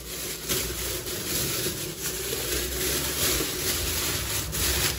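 Cling film and a black plastic bag crinkling and rustling as they are peeled and pulled off a large aluminium cooking pot, a continuous stream of crackles.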